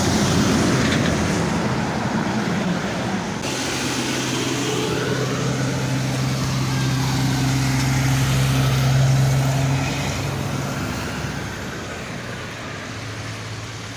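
A motor vehicle's engine running with a steady low hum, which grows louder about two-thirds of the way through and then fades.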